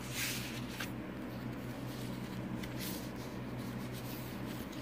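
Soft, brief rustles and brushes of paper and card as the pages of a handmade paper journal are handled and turned, over a steady low hum.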